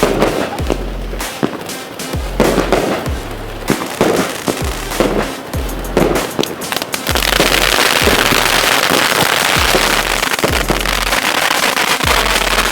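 Fireworks going off: a run of sharp bangs, then from about seven seconds in a dense, continuous crackle, over music with a steady beat.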